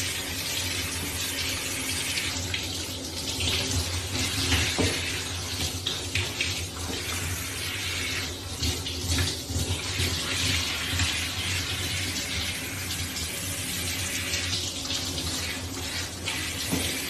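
Water spraying steadily from a handheld shower head onto a wet cat in a tub, with small rises and dips in the hiss as the spray moves.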